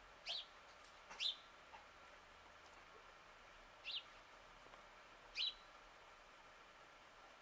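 A small bird's short, high call, heard four times, each a quick downward sweep.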